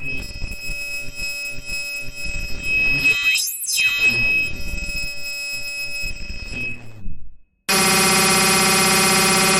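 Black MIDI noise music from a synthesizer: a dense jumble of electronic notes under a steady high tone, with a pitch sweep that rises and falls about halfway through. Near the end it cuts out for a moment, then comes back as a loud, dense chord held on many notes at once.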